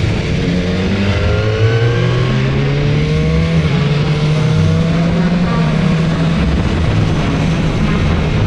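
Sport motorcycle engine running under acceleration while riding, its pitch climbing over several seconds and then levelling off, over a steady rush of wind noise.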